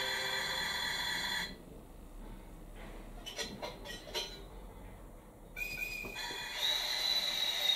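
A few small clicks as an HO-scale model locomotive's Kadee coupler engages the car. Then a KATO Sound Box plays an electric locomotive's whistle: a brief tone, then a long high whistle near the end that slowly falls in pitch. A steady layered tone stops about a second and a half in.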